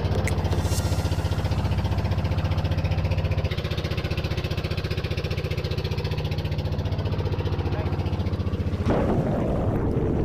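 Boat engine running steadily with a low, pulsing hum that drops a little about three and a half seconds in. Near the end a rushing noise of wind and spray joins it.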